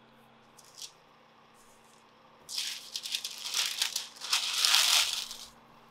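Crackly rustling of baking paper being handled under a wax cake-shaped candle base, starting about two and a half seconds in and lasting about three seconds with a short break midway.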